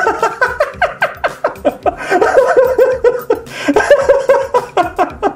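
A young male anime character laughing in a long run of quick, high-pitched 'ha-ha' pulses, several a second.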